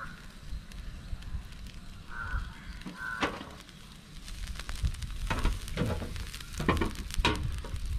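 Tilapia grilling in a grill basket over a hot coconut-shell fire: steady sizzling and fire noise, with sharp crackles and pops that become more frequent from about three seconds in.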